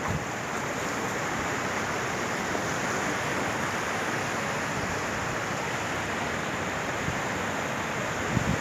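Floodwater rushing steadily, an even roar of water, with a couple of low thumps near the start and near the end.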